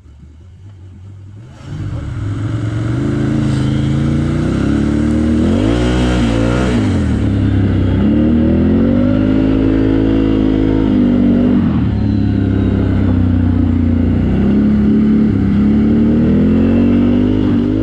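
Can-Am Outlander XMR ATV engine revving, its pitch rising and falling again and again as the throttle is worked. It comes in suddenly about a second and a half in and stays strong.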